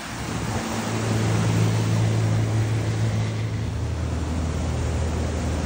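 Boat engine humming steadily and water rushing as a power catamaran passes close at cruising speed, with wind on the microphone. The hum drops lower in pitch about four seconds in.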